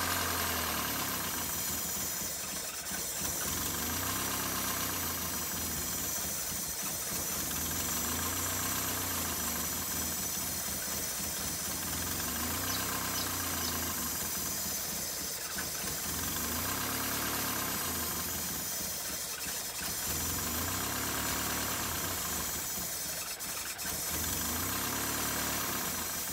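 Toyota 4A-C carburetted four-cylinder engine idling with its automatic choke removed, the idle gently rising and falling every few seconds.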